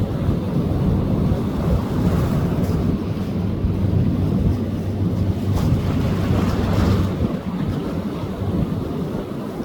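Sea waves breaking and washing up a beach, with heavy wind rumble on the microphone; a wave surges louder and brighter about two-thirds of the way through.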